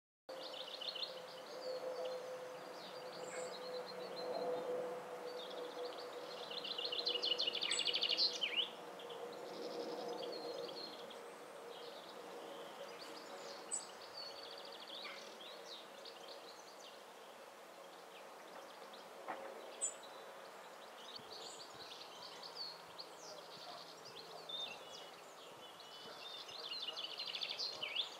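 Small songbirds twittering outdoors: bursts of rapid, high trilling chatter, loudest about eight seconds in and again near the end. A faint steady low hum sits beneath it for roughly the first ten seconds.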